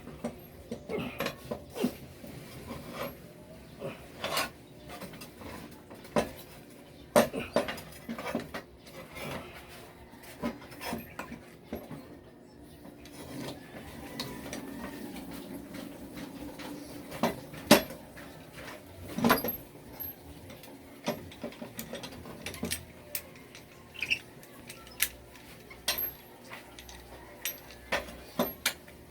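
Irregular metallic clinks and knocks of hand tools and small metal parts being handled and set down, with some rubbing and scraping, as a motorcycle is worked on.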